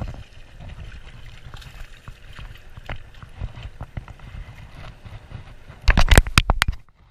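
Wind rumbling on the microphone over moving river water while a hooked fish is reeled in, then a quick run of loud splashes about six seconds in as the fish thrashes at the surface close by.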